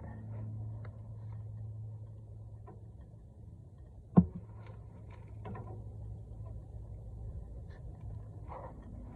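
A steady low hum with a few light clicks, and one sharp knock about four seconds in.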